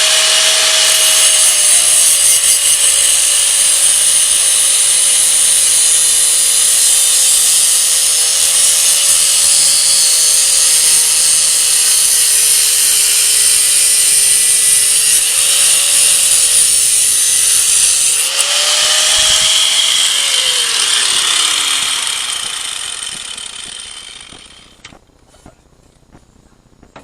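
Power grinder working on sheet-metal bodywork: a steady high motor whine with a harsh grinding hiss, the pitch sagging briefly as it bears down. About twenty seconds in it is switched off and the whine slides down and fades as the disc spins to a stop.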